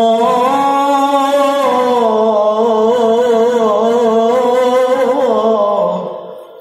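A male qori reciting the Qur'an in the melodic tilawah style: one long ornamented phrase on sustained, wavering notes that fades out about six seconds in.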